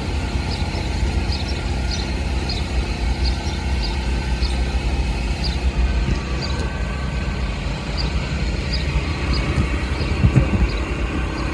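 Amtrak Superliner bi-level passenger train rolling across a steel truss railroad bridge: a steady low rumble, with light high clicks repeating at uneven intervals over it.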